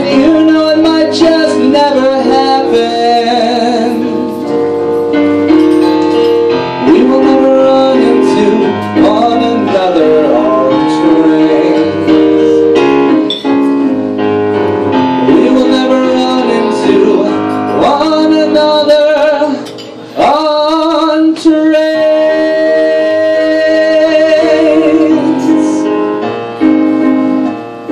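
A solo voice singing a slow song, with long held notes that waver and slide between pitches, over piano accompaniment.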